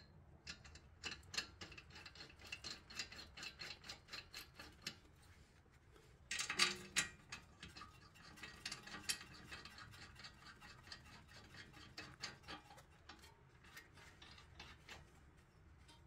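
Ratchet wrench with a 10 mm hex bit clicking in steady strokes, about four clicks a second, as the bolts of a brake caliper adapter bracket are run in. A louder metallic clatter comes about six and a half seconds in.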